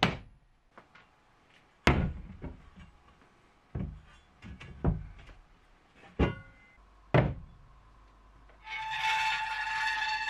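Steel plates and a thick steel bar being set down on a concrete floor: about six sharp metal clanks over the first seven seconds, some ringing briefly. Near the end steady background music comes in.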